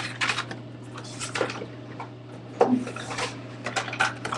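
A boxed doll's cardboard-and-plastic packaging being picked up and moved about close to the microphone: a string of irregular rustles, clicks and knocks.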